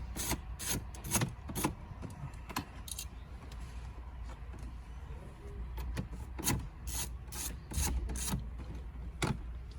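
T20 Torx driver clicking and scraping in the heads of dash trim bolts as they are unscrewed, in irregular bursts with a pause in the middle; the bolt heads are all messed up.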